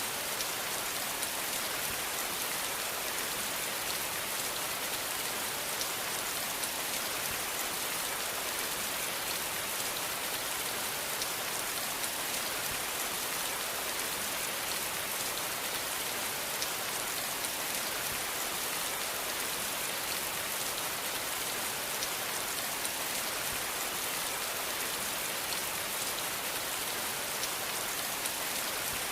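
Steady rain falling and pattering on a surface, an even hiss with faint scattered drop ticks and no change throughout.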